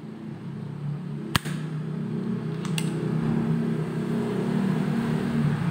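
Spring-loaded desoldering pump firing once with a sharp click about a second and a half in, with a fainter click about a second later, as solder is sucked off a resistor's joint. A steady low hum runs underneath.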